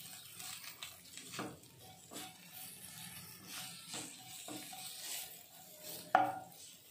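Wooden spatula stirring and scraping onions, herbs and spices in a non-stick kadai, with a light sizzle of frying; a sharper knock against the pan about six seconds in is the loudest sound.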